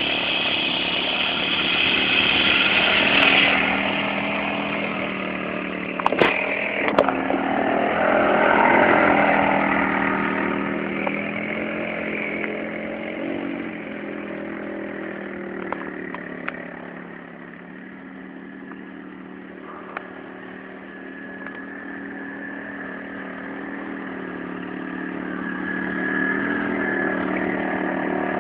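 150 cc quad bike's single-cylinder engine running with the revs rising and falling as it rides about. It fades as the quad moves farther off past the middle and grows louder again near the end, with a few sharp clicks about six and seven seconds in.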